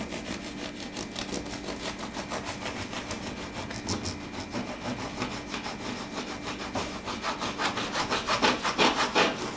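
Serrated bread knife sawing through a freshly baked, hard-crusted white loaf: quick back-and-forth rasping strokes, about five a second, louder near the end as the blade works through the bottom crust.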